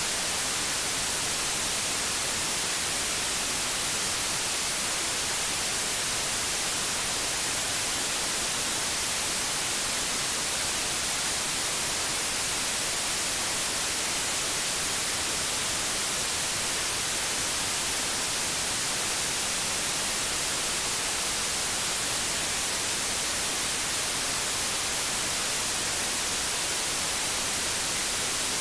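Steady white noise: an even, bright hiss that does not change.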